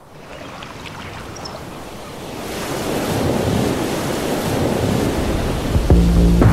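Sea waves and surf washing in a steady rush that swells louder about two and a half seconds in. Near the end a low, steady hum of held tones cuts in suddenly, the start of the soundtrack music.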